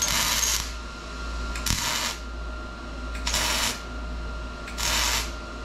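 Arc welder tack-welding an exhaust pipe joint: four short crackling bursts, each about half a second long and about one and a half seconds apart.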